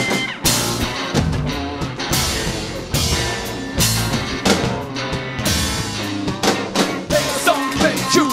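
Live rock band playing: a drum kit with repeated cymbal crashes, about one a second, under electric guitars.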